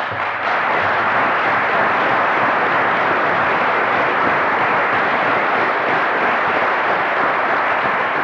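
Audience applauding, a steady even clapping that starts all at once and holds level throughout.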